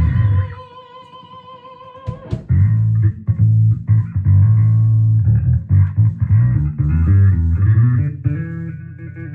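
Ibanez EHB1505MS five-string electric bass played through a Darkglass ANAGRAM preamp, amplifier and cabinet, in its default sound with the distortion turned down. A note rings out and fades, then after a sharp pluck comes a run of low notes, and near the end a last note fades away.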